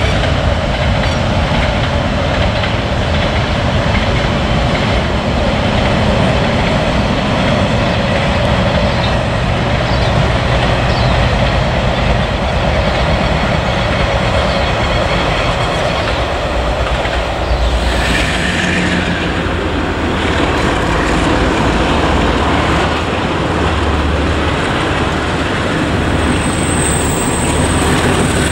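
Freight wagons rolling past, the wheels clattering steadily over the rail joints. The sound changes about two-thirds of the way through, and near the end a thin, high wheel squeal rises over the rumble.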